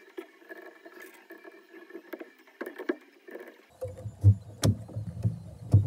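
Handling noise of a small generator frame being assembled: lock collars slid onto metal frame rods and a 3D-printed plastic end cap moved against them on a wooden floor. A few faint clicks at first, then from about four seconds in a run of dull knocks and sharper clacks.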